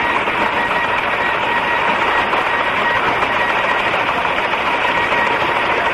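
Teleprinter clattering steadily as it types out a news-agency cable, a continuous mechanical rattle with a faint steady whine beneath it.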